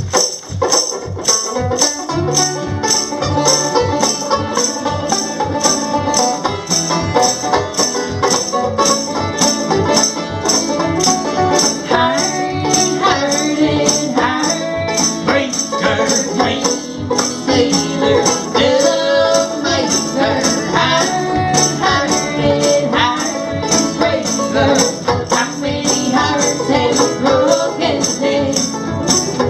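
Live band playing an upbeat instrumental passage with a steady beat that comes in suddenly at the start.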